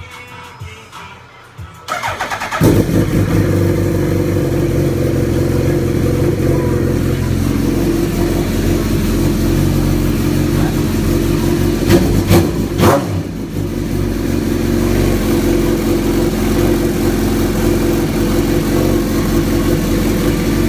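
A Suzuki Hayabusa's inline-four engine is started after a short crank about two seconds in. It settles into a loud, steady idle through the mid pipe alone, with the muffler removed, and is blipped twice about twelve seconds in.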